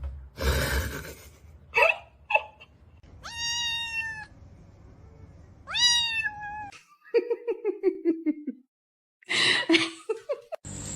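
A domestic cat meowing: two drawn-out meows, each about a second long, then a quick run of short calls falling in pitch, with scattered knocks and scuffling around them.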